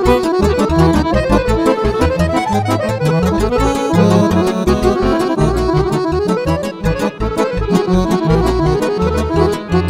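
Accordion playing a fast lăutărească (Romanian Roma party) tune: quick running melody lines over a steady, pulsing bass.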